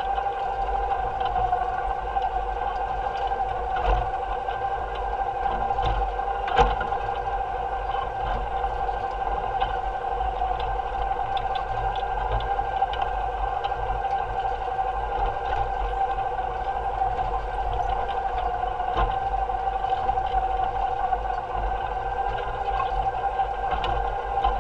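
Electric motor of an electric-powered Allis-Chalmers Model G tractor running with a steady whine while it pulls a basket weeder through the rows. Underneath is a low rumble, with occasional knocks and clatter, the sharpest about six and a half seconds in.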